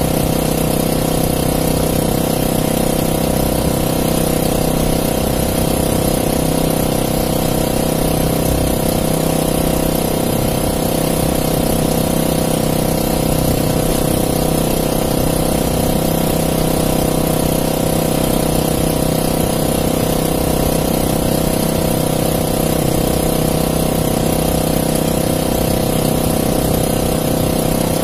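Small gasoline engine on an outrigger fishing boat running steadily at an even, unchanging speed.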